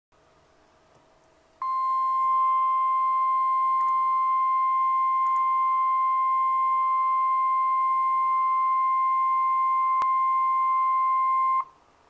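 NOAA Weather Radio 1050 Hz warning alarm tone: a single steady high beep lasting about ten seconds that switches on and off abruptly. It signals a severe thunderstorm warning about to be read out.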